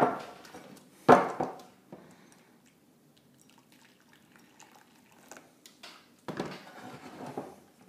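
Hot water poured from an electric kettle into a bowl of yoghurt and bicarbonate of soda, with two sharp knocks about a second apart near the start as things are set down on the wooden table.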